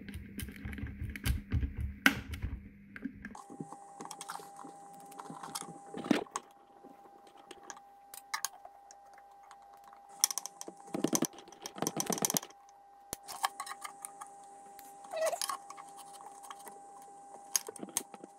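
Metal putty-knife blade scraping and clicking as it is pried under a glued ukulele bridge to lift it off the heat-softened glue. It comes in irregular bursts of scratchy clicks, with a steady hum that starts about three seconds in.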